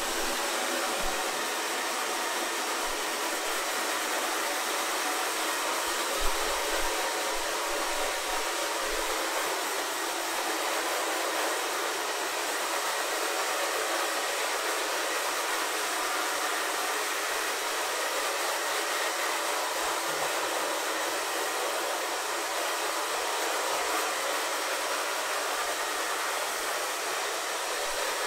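Handheld hair dryer blowing steadily, a constant rushing noise that switches on abruptly just before and holds without change.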